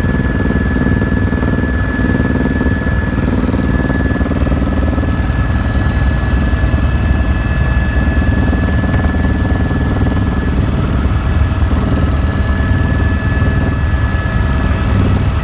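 Helicopter in flight: the steady drone of the rotor and turbine engine, with rapid low beating underneath and a steady high whine above.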